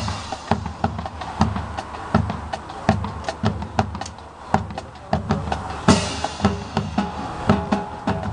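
Marching band opening its show: drums and other percussion playing sharp, scattered strikes, with one loud crash about six seconds in and held notes joining near the end.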